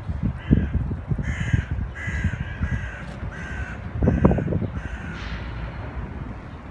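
A bird calling: a run of about seven short, evenly spaced calls over roughly five seconds, ending a little after five seconds in.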